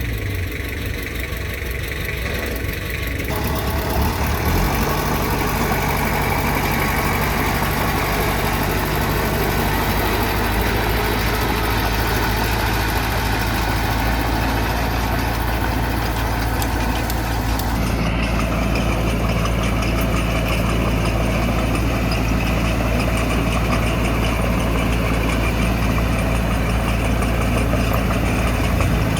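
Heavy diesel engines of earthmoving machinery running steadily at work, with the engine note changing a few times along the way.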